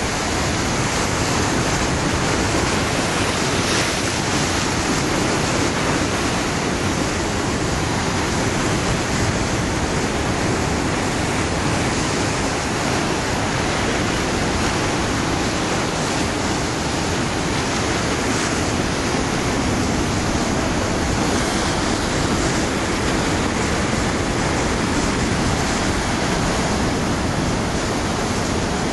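Ocean surf breaking and washing over rocks close by, a steady, even rush of water.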